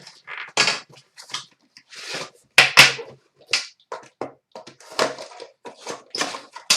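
Trading-card packaging being opened and handled: an irregular run of rustles and crackles as a pack is torn open and the cards pulled out.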